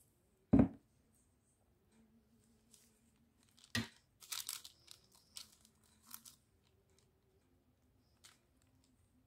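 A sharp knock about half a second in, then another just before four seconds. Between them and after come short crinkling rustles of parchment paper and a plastic glove as marinated chicken wings are pressed onto a baking tray.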